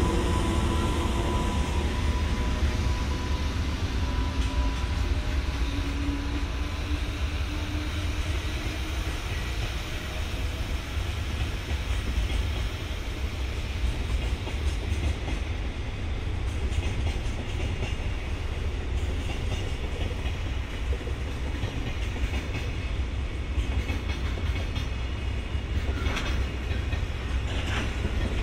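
Freight train rolling past, the steady rumble of wagon wheels on the rails with some clickety-clack over rail joints. In the first few seconds, steady humming tones fade away, and a few sharp clicks come near the end.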